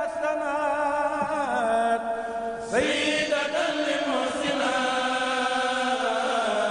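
A single voice chanting in long, drawn-out phrases that slide in pitch, as an intro chant. One phrase ends and a new one begins a little under three seconds in.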